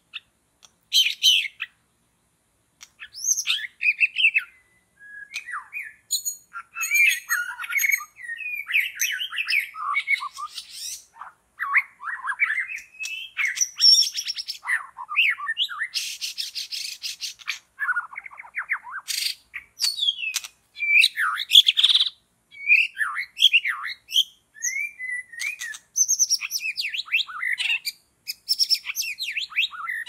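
White-rumped shama song: a string of varied, rich whistled phrases with short pauses between them, and a harsh rattling call about sixteen seconds in.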